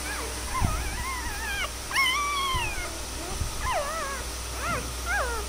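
Newborn Labrador–German Shepherd mix puppies whimpering and squealing: a string of short, high cries that rise and fall, several overlapping, with the longest and loudest about two seconds in. A few low bumps sound under them.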